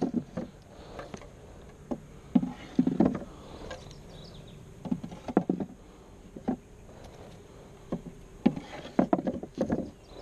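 Wooden hive boxes and frames knocking and clattering as they are handled and set in place, in irregular bumps, over a faint hum of honey bees.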